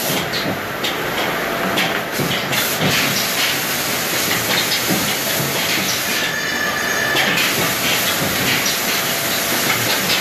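Woodworking machine running steadily as wooden boards are fed through it, a loud continuous mechanical noise with scattered clicks. A brief high whine comes in about six seconds in.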